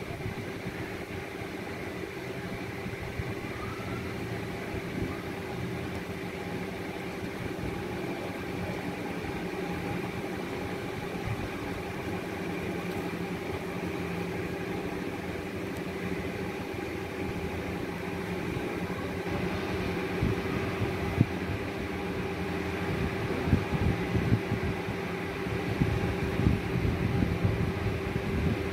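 A steady mechanical hum with a few constant tones, like a motor running. Irregular soft knocks and handling noises come in over the last third.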